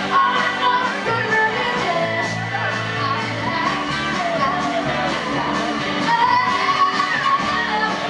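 A live band playing with a woman singing lead, her voice over electric guitar, bass and a steady drum beat.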